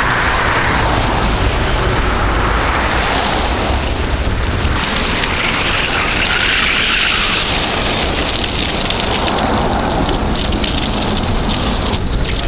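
A gravel bike's tyres rolling over packed snow, a steady noisy hiss, with wind rumbling on the microphone of the chest-mounted camera.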